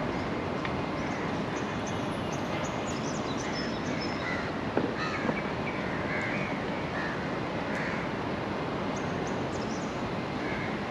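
Birds calling on and off, with caw-like calls, over a steady hum of outdoor city background noise. A single sharp knock comes about five seconds in.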